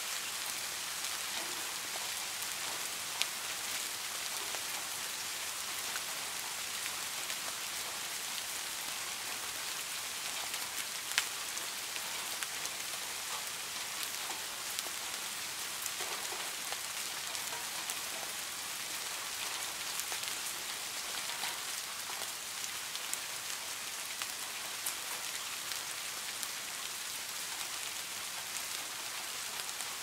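Soft rain falling steadily, an even hiss with scattered individual drop ticks; a couple of sharper drops stand out, about three and eleven seconds in.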